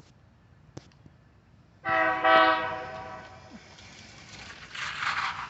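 One blast of a BNSF GE Dash 8-40BW locomotive's air horn, a Nathan K3LA chord on the lead unit, starting about two seconds in and fading after about a second and a half. A rushing noise rises near the end.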